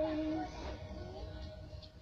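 Music with held melody notes, growing quieter in the second half.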